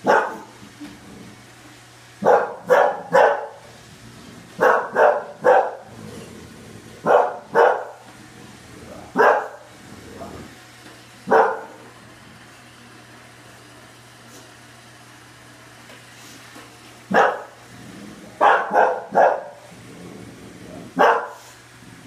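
English bulldog barking, single barks and quick runs of two or three, with a long pause in the middle, at a Roomba robot vacuum. A steady low hum runs underneath.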